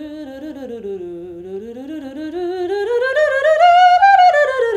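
A woman singing a vocal warm-up scale on a held vowel in quick, even steps. It dips a little, climbs to a high note about four seconds in, and then comes back down.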